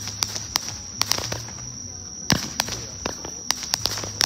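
Small toy fireworks going off: irregular sharp pops and crackles, the loudest about two seconds in.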